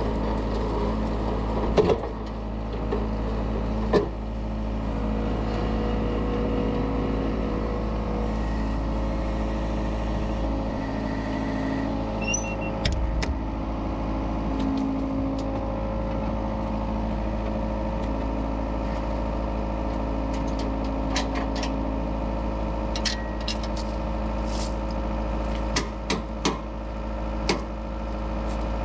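Skid steer engine running steadily under work, with a few sharp knocks or clanks about two and four seconds in and again near the end.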